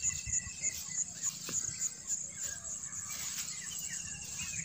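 Outdoor field ambience: an insect's high, pulsing trill, about four pulses a second, with small birds chirping in the second half.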